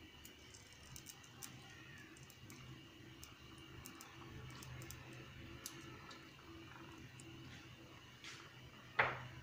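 Faint irregular ticks and small clicks of a pan of fish-head and dal curry simmering as tomato pieces are dropped in, over a faint steady hum. One louder short knock comes near the end.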